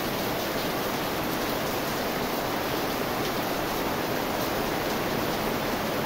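Heavy rain falling, a steady even hiss that does not let up.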